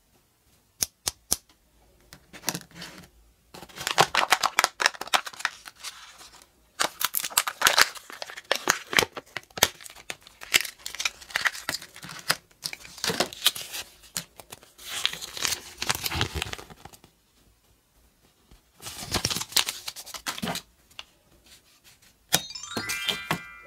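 Plastic toy pieces clicking, then the crinkling and tearing of a Kinder Joy toy capsule's wrapping and paper leaflet in several stretches of handling. A brief pitched sound starts near the end.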